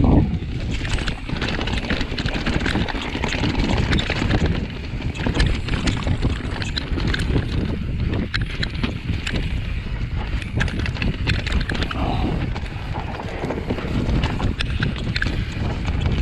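Mountain bike riding down a leaf-covered, rooty dirt trail: tyres rolling and crunching over leaves and ground, the bike rattling with many quick sharp knocks over bumps, over a steady low rumble of wind on the microphone.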